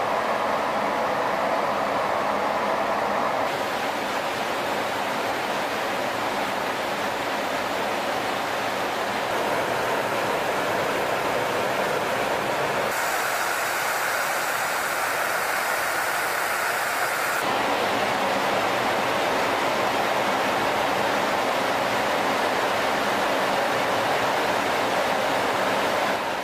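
Steady in-flight cabin noise of a large aircraft, a continuous rush of engines and airflow, its tone shifting abruptly a few times.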